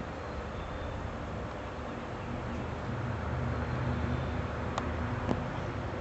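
Low rumble of road traffic, swelling about halfway through as a vehicle passes, with two faint clicks near the end.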